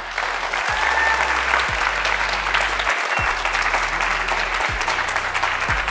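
A hall audience applauding, with background music's low bass beat underneath.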